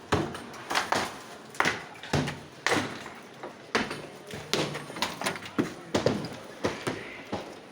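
Repeated heavy blows of a hand tool striking at a work site, irregular at about one to two a second.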